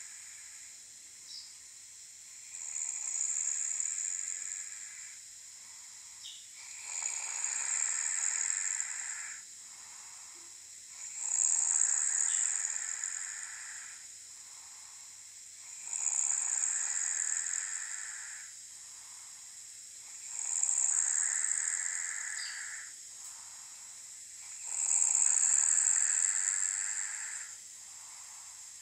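A sleeping guinea pig snoring: six long, noisy breaths, each lasting two to three seconds and coming at an even pace about every four and a half seconds.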